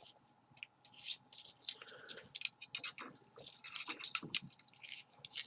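Handcuffs being worked: ratchet teeth clicking and the chain rattling in a loose run of small, irregular metallic clicks.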